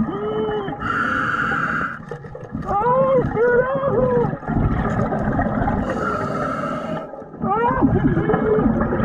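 Underwater recording of a diver breathing out: two hissing bursts of exhaled bubbles about five seconds apart, with muffled, wavering voice-like tones between them.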